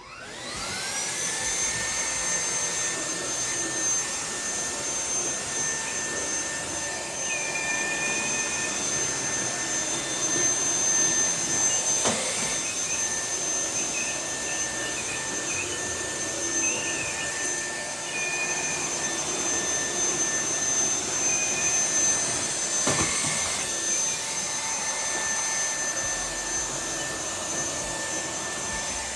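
Wyze cordless stick vacuum starting up with a rising whine, then running steadily as it vacuums carpet. A sharp click is heard twice.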